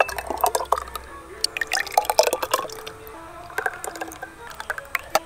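Filled glass tumblers clinking and knocking as they are lifted and set down on a wooden board, a run of short sharp clicks. Faint music plays underneath.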